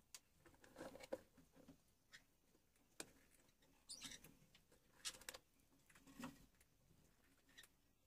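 Near silence broken by faint scattered clicks and short scratchy rustles, roughly one a second.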